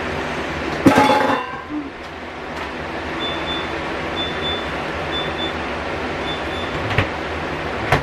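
Items being handled while a refrigerator is emptied, over a steady hum. A glass container is set down with a ringing clink about a second in, and sharper knocks follow near the end. Faint short high beeps repeat about once a second in the middle.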